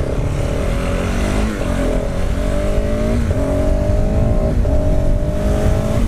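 KTM 690 supermoto's single-cylinder engine accelerating hard through the gears. The pitch climbs steadily in each gear and drops at three upshifts, about a second and a half, three and four and a half seconds in. Wind rumbles on the microphone throughout.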